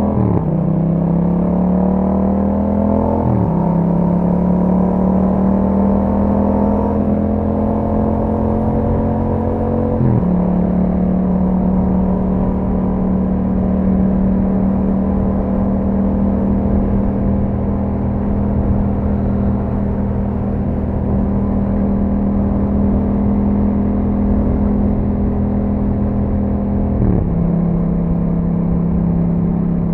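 2021 Yamaha MT-07's parallel-twin engine through an Akrapovič exhaust while riding. It rises in pitch under acceleration with quick upshifts at the start and a few seconds in, then runs steadily at cruise, with another gear change about ten seconds in and again near the end.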